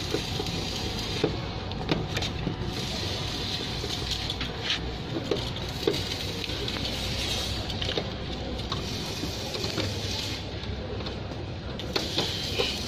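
Screwdriver clicking and scraping on the screws of a terminal block as wires are fastened, a few sharp taps spread through, over a steady background hum.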